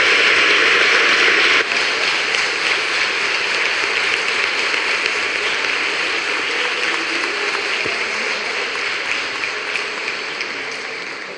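Audience applauding, the clapping strongest in the first couple of seconds and then gradually dying away near the end.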